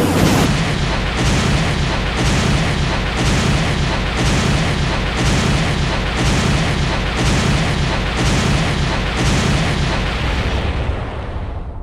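A "thunder blaster" sound effect: a loud, dense rumbling blast that pulses about once a second, like repeated booming shots, then fades out near the end.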